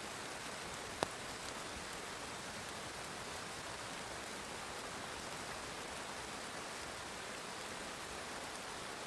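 Heavy rain falling steadily, an even hiss, with one sharp tap about a second in.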